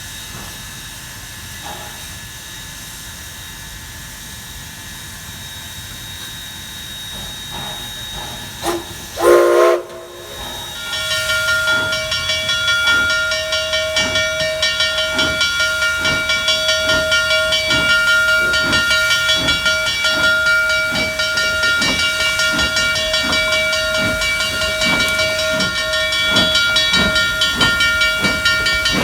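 Narrow-gauge steam locomotive: a steady hiss of steam, then a short whistle blast about nine seconds in. After that, regular exhaust chuffs at about one a second, slowly quickening as it gets under way, with steady ringing tones over them.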